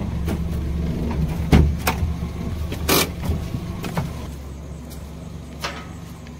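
A vehicle's engine idling steadily, with a handful of sharp knocks and clicks over it; the engine gets quieter about four seconds in.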